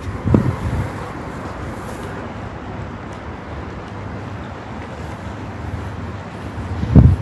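Steady low rumble of distant city traffic, with wind buffeting the microphone in two short gusts, one just after the start and one near the end.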